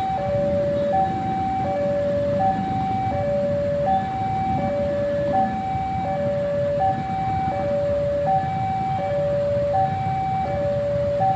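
Electronic two-tone warning alarm sounding steadily, alternating a higher and a lower note about every 0.7 seconds, over a low rumble of traffic.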